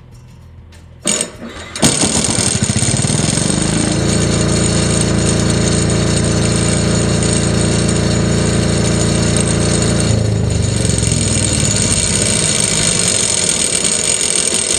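Mosa super-silenced generator's single-cylinder Yanmar diesel engine being started: a brief crank about a second in, then it catches and runs steadily. It is running on GTL fuel, on which the owner finds it runs quieter.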